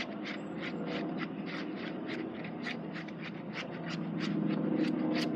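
Glue and shaving cream being stirred in a bowl to make fluffy slime, a utensil scraping the bowl in quick, even strokes, about three a second.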